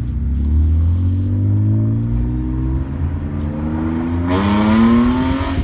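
Car engine revving up under acceleration, heard from inside a following car. Its pitch climbs steadily for several seconds, then it gets louder near the end.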